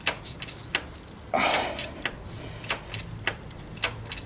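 A steady run of light, sharp ticks, about three every two seconds, with a short hissing rush about a second and a half in.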